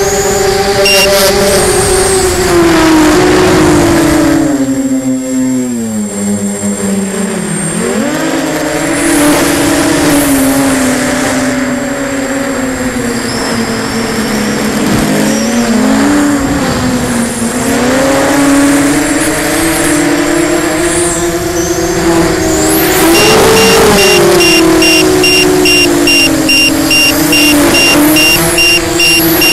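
An FPV quadcopter's four Emax 2204 brushless motors spinning 6045 propellers, whining hard. The pitch sinks for a few seconds, then climbs and wavers as the throttle is worked. A repeated high beeping shows near the end.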